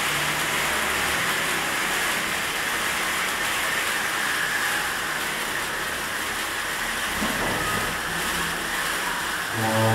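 Ice fountain sparklers burning with a steady hiss of spraying sparks.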